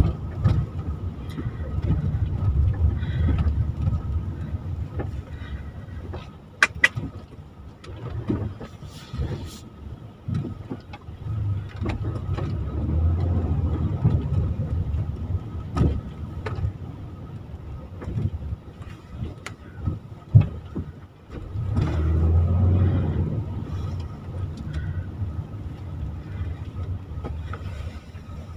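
Cabin noise of a van being driven: a low engine and road rumble that swells and eases, with a few sharp clicks or knocks, the loudest about twenty seconds in.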